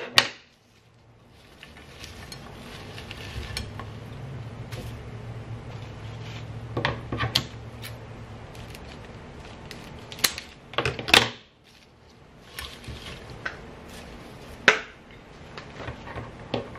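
Scissors cutting rose stems: a few sharp, separate snips and clicks spaced out over the seconds, several close together partway through. A low steady hum sits beneath them for much of the time.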